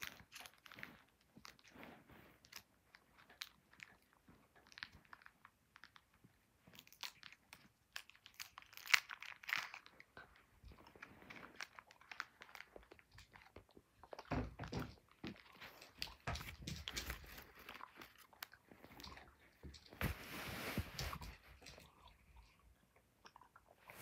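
A boy chewing a piece of Extreme Sour Now and Later watermelon taffy candy close to the microphone: irregular small wet clicks and crunches, with a couple of louder bursts past the middle.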